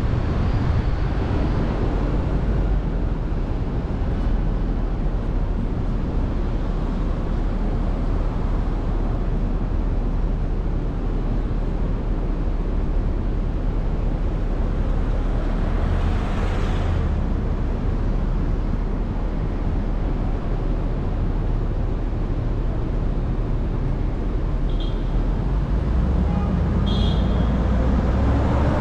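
Steady road and city-traffic noise heard from a car driving along downtown streets, mostly a low rumble. A louder swell comes about halfway through.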